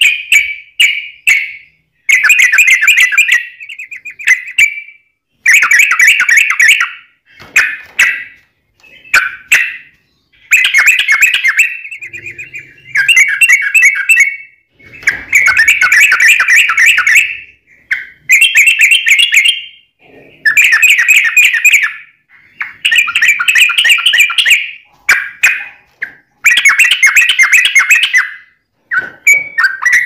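Yellow-vented bulbul singing loudly, a string of rapid warbling phrases of one to two seconds each, separated by short pauses.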